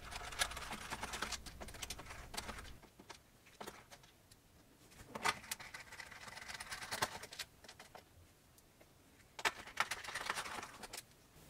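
Torx screws being undone with a small screwdriver on a Beosound 9000 CD player's casing: scattered quiet clicks and scrapes of the driver and screws, with a few sharper clicks spread through.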